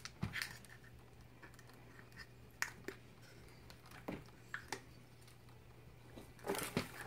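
Faint, scattered clicks and crinkles of a plastic mold and plastic sheet being handled and worked off a freshly set plaster volcano cast, a few separate ones through the middle and a quick cluster near the end.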